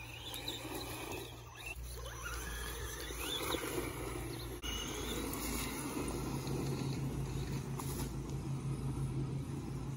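Electric motor and geared drivetrain of an Axial RC rock crawler whining faintly as it drives over grass and dirt, the pitch rising and falling with the throttle.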